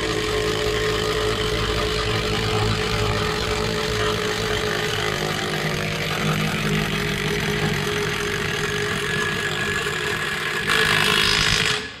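Milwaukee cordless impact wrench running steadily for about twelve seconds as it drives the screw of a clamp-on bead breaker, forcing a tractor rear tire's bead off the rim. It gets louder near the end, then stops.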